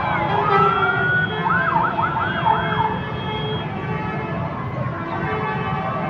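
Indonesian 'telolet' musical bus horn sounding a wavering, siren-like tune, its pitch swooping up and down several times in the middle.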